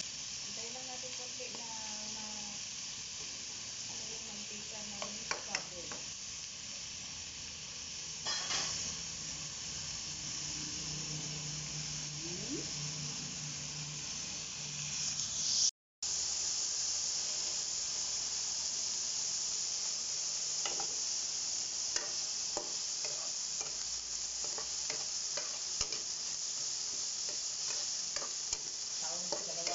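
Pork pieces with onion and garlic sizzling in hot oil in a nonstick wok, with a steady hiss and a spatula scraping and clacking against the pan now and then as it is stirred. The sound cuts out for a moment about halfway through.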